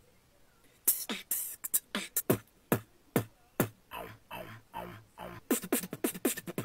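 Human beatboxing into a handheld recorder's microphone, one layer at a time. Starting about a second in comes a string of punchy hits, each dropping quickly in pitch; about four seconds in a softer low bass part follows, then sharp snare sounds near the end.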